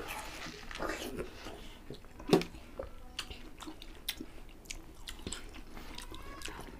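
People biting and chewing watermelon flesh straight off the rind: a run of short bite and chewing sounds, one louder about two and a half seconds in.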